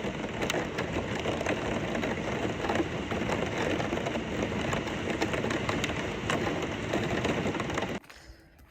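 Steady rain falling, with many scattered drops ticking on a hard surface; it cuts off suddenly near the end.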